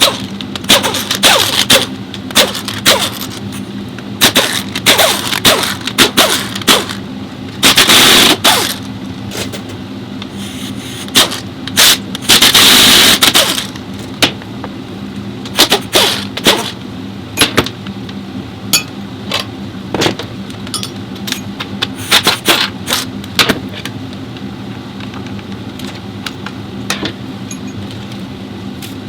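Metal clanks, knocks and scrapes of hand tools and parts on a Kia K7's 8-speed automatic transmission being worked on, with two hissing bursts of about a second each, over a steady shop hum.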